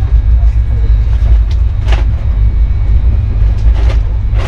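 Steady low rumble of a moving express train, heard inside a sleeper coach, with a couple of short clicks about two and four seconds in.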